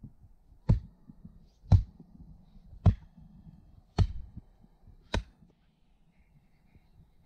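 An axe chopping cut branches: five sharp strikes, about one a second.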